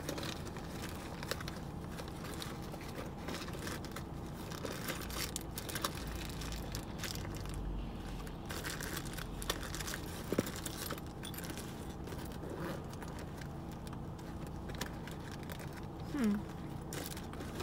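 Rummaging through a crowded makeup bag: crinkling with many light clicks and rattles as cosmetics are moved around.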